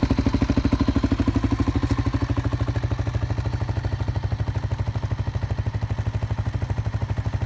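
1986 Kawasaki KLR 250's single-cylinder four-stroke engine idling steadily, an even beat of about ten exhaust pulses a second. It has just been cold-started on the first kick after its carburetor and intake were warmed with a heat gun.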